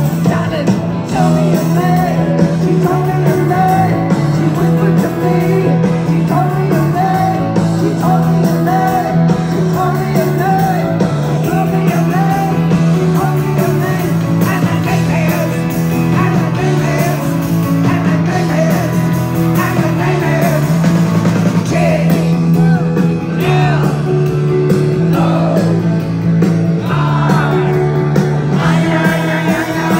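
Live rock band playing loud, heard from the crowd, with a voice singing over guitar and a steady bass line.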